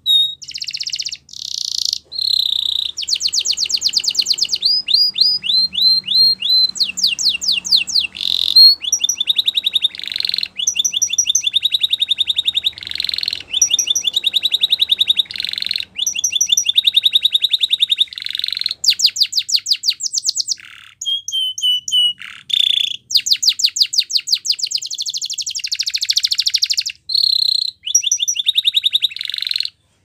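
Domestic canary singing a long song of rapid trills, switching from one repeated note to another every second or two, some as quick rising sweeps, with short pauses between phrases.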